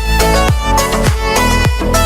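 Electronic dance music with a steady kick drum, a little under two beats a second, under held, violin-like melody notes.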